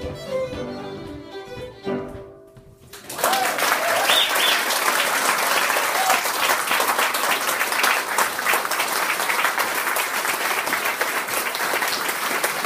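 Fiddle and piano play the last bars of a tune and end on a final note about two seconds in. After a brief lull, an audience breaks into sustained applause.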